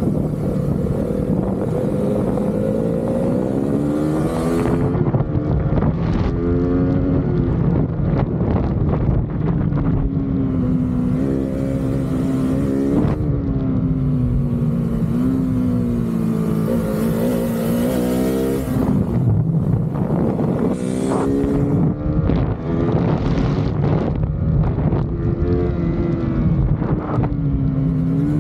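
Motorcycle engine running under way, its pitch climbing and then dropping several times as the bike accelerates and eases off, with wind rushing over the microphone.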